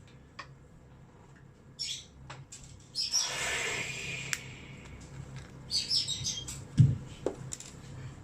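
Small birds chirping in two short bouts, with a broad hiss lasting about a second and a half between them, a few light clicks and a low thump near the end.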